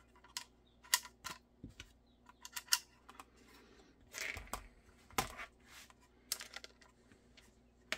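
Hard plastic parts of a Kydex holster and a polymer accessory bracket clicking and tapping against each other as they are handled and fitted together. There are irregular sharp clicks throughout and a short scrape about four seconds in.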